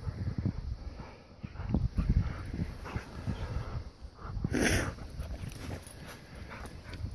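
Dogs plunging and digging through deep snow, making irregular crunching thuds and scuffs, with a louder rushing burst about four and a half seconds in.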